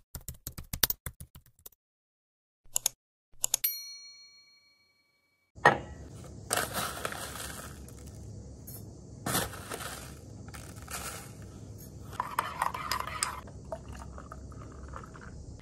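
A rapid run of small clicks, then a few more clicks and a single bell-like ding that rings and fades over about a second. From about halfway in there is room noise with several rustling and clinking bursts.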